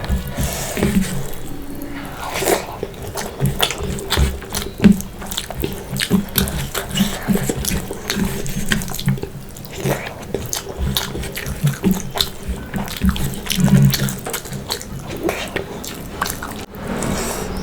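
Close-miked eating sounds: wet chewing and mouth smacking on spicy fish curry and rice, a dense run of short, sticky clicks and squelches.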